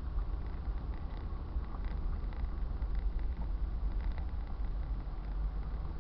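Car driving along a winding road: steady low road and engine rumble heard inside the cabin, with a few faint ticks now and then.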